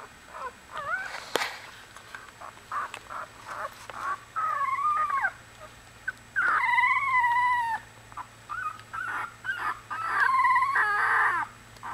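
One-week-old Australian Bulldog puppies whining and squeaking: about four wavering cries, the longest lasting about a second and a half just past the middle, with small soft clicks and rustles between them.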